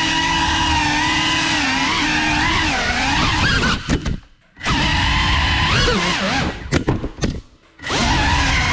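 GEPRC CineLog 35 cinewhoop's four motors and ducted propellers whining, the pitch rising and falling with the throttle. The whine cuts out suddenly twice, about four seconds in and again near the end, as the throttle is chopped, then comes back.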